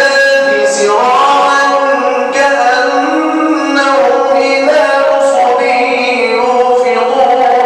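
A man's voice chanting Quran recitation in melodic tajweed style through a microphone, holding long notes that bend and glide in pitch.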